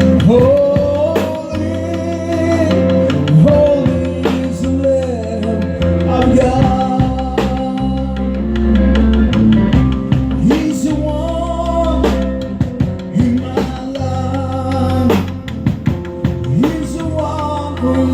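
Live three-piece band playing a song: a sung vocal with guitar over bass and a drum kit.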